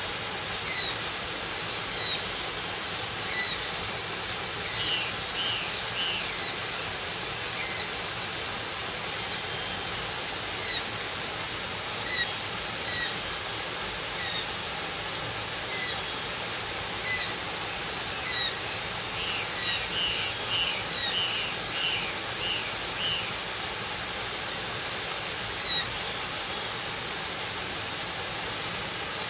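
Golden-winged cacique calling with short, repeated chirps over a steady rushing hiss. The chirps come thicker in two runs, about five seconds in and again around twenty seconds in.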